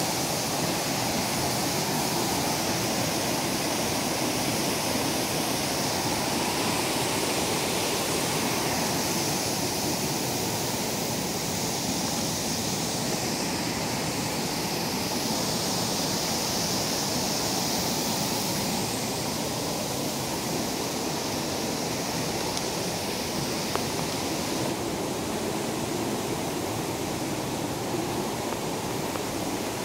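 Waterfall and cascading creek rushing steadily, easing slightly in the second half.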